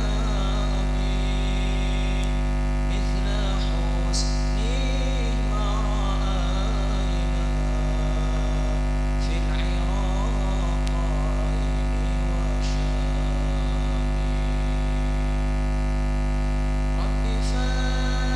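Loud steady electrical mains hum in the sound system, with faint male voices singing short wavering phrases at intervals over it.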